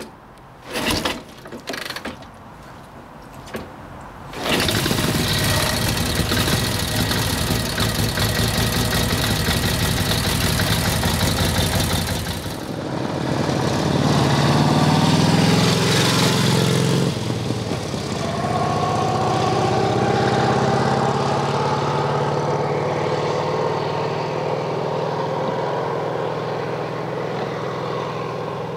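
Brough Superior SS80 side-valve V-twin being kick-started: a few sharp kicks, then the engine catches about four seconds in and runs loud and steady. The bike then rides past on the road, its engine rising in pitch through the gears and fading as it pulls away.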